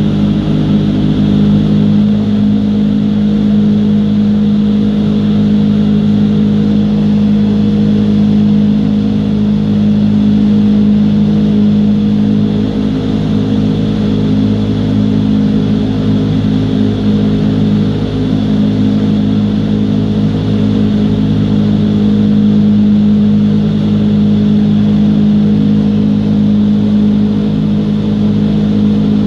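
Vertical wind tunnel running: the fans drive a loud, steady rush of air with a constant low hum underneath.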